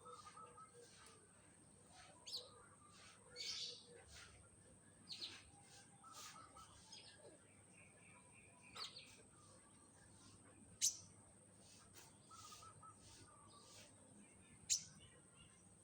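Sparse chirps and short calls from a young konin songbird, with two louder sharp chips about four seconds apart in the second half. A faint steady high-pitched tone runs underneath.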